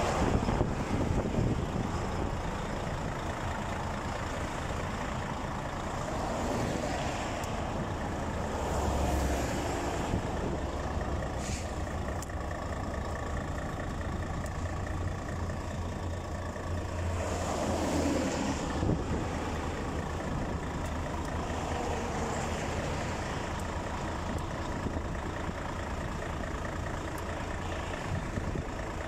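Highway traffic, trucks and cars, passing at speed over a steady low rumble, swelling as each vehicle goes by.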